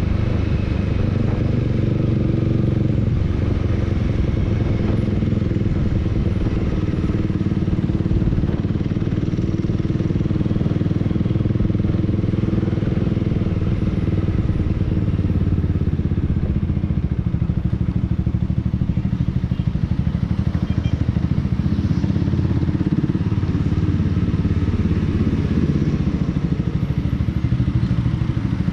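Honda Rebel 300's single-cylinder engine running steadily while the motorcycle is ridden at an even pace.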